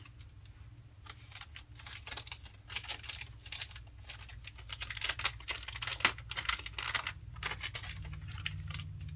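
Crinkling, tearing handling noise: a dense run of small clicks and rustles from about a second and a half in until near the end, over a steady low hum.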